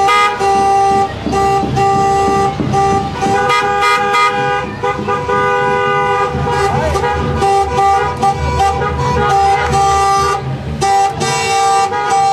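Car horns honking over and over, several horns at different fixed pitches, in long held blasts and shorter toots, with voices underneath.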